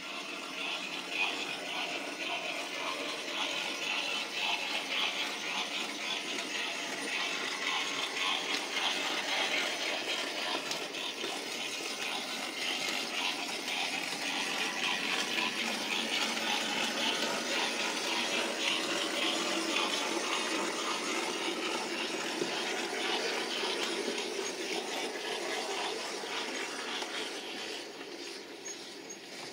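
OO gauge model train running on the layout track: a steady whirring rumble of motor and wheels on rail. It grows louder toward the middle and fades near the end.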